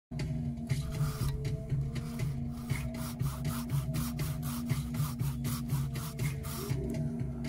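Hand saw cutting through a green sycamore axe-handle blank in quick, even back-and-forth strokes, each stroke a dry rasp of the teeth in the wood.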